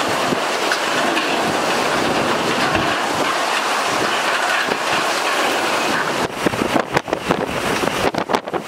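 Hurricane-force wind blowing in a steady, noisy roar. About six seconds in it turns gusty, with uneven rushes of wind buffeting the microphone.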